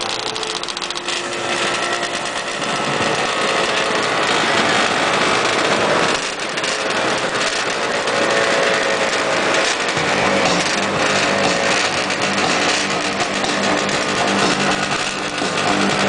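A group of vintage two-stroke snowmobile engines running at once, mostly yellow Ski-Doos. One sled drives past close by about halfway through, its pitch rising and falling, and a steadier idle is heard from about ten seconds in.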